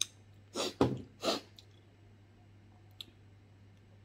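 Three quick wet slurps from the mouth as marrow is sucked out of a piece of beef bone, the middle one loudest, followed by a small click about three seconds in.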